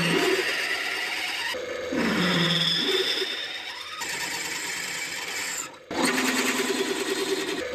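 Bench drill press running as a cobalt twist drill bores through a stainless steel plate, a steady machine noise with a high whine from the cut. The sound breaks off and starts again about one and a half, four and six seconds in.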